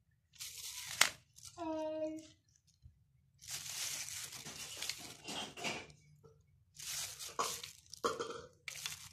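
Clear plastic wrapping crinkling and rustling in several bursts as a ring light and its small plastic mounting parts are handled. There is a sharp click about a second in, and a short steady humming tone just after it.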